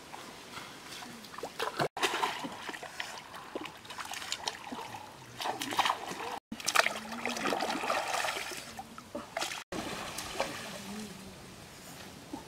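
Water splashing and sloshing as a wicker basket is dipped and swished through a shallow stream, in several bursts that break off abruptly.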